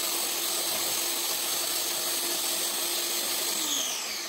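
Countertop food processor running on its highest setting, its blade grinding vanilla sandwich cookies into crumbs: a steady motor hum with grinding noise that winds down near the end as it is switched off.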